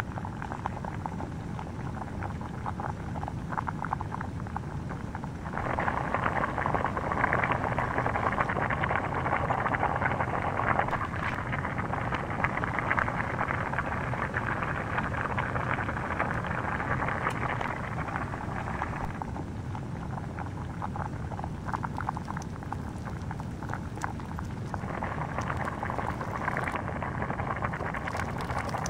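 Plastic whistle melting and bubbling in a flame: steady sizzling with dense fine crackles. It grows louder about six seconds in, eases off near twenty seconds and picks up again near the end.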